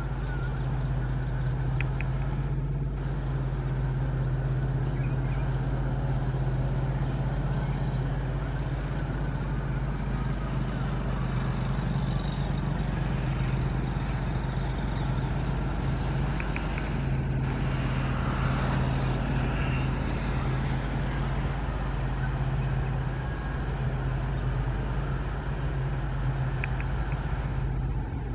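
Diesel locomotive running with a steady low engine hum under broad, even rumbling noise.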